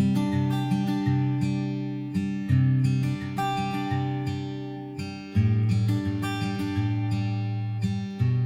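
Background music: an acoustic guitar strumming and picking chords, each stroke ringing and fading, with a move to a lower chord about five seconds in.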